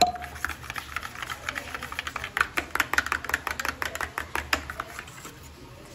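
Rice flour and water being stirred briskly in a steel tumbler: a quick run of clicks and scrapes against the metal, easing off near the end.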